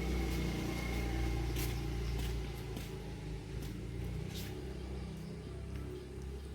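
A vehicle engine running steadily and slowly fading as it moves off, with a few faint light clicks.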